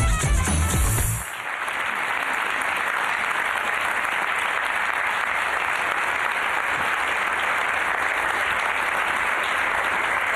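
Music with a heavy beat that cuts off about a second in, then a studio audience applauding steadily.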